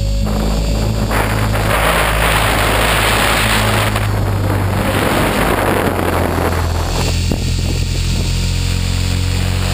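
Align T-Rex 450 Pro electric RC helicopter heard from a camera mounted on its nose: the motor and main rotor run with a steady drone. Wind rushes over the microphone from about one to seven seconds in as the helicopter flips through 3D manoeuvres.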